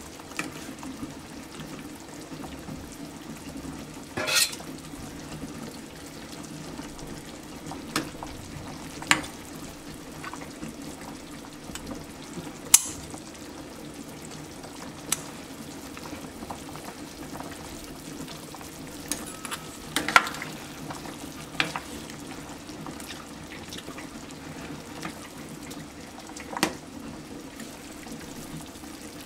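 Stainless steel pot of beef rib soup boiling steadily, with a metal ladle clinking sharply against the pot about seven times as it stirs.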